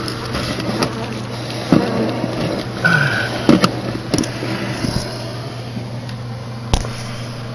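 Bee vacuum running with a steady hum while its hose is worked around inside the soffit, sucking up honey bees, with a few short knocks of the hose against the structure.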